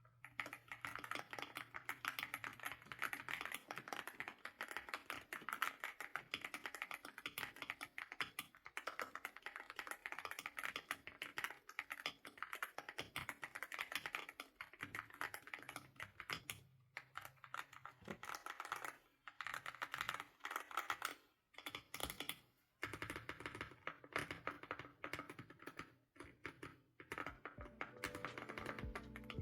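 Fast typing on a custom Yunzii X71 mechanical keyboard: a dense run of keystroke clacks with brief pauses, a soft, rounded sound called "creamy bubbles". Background music comes in near the end.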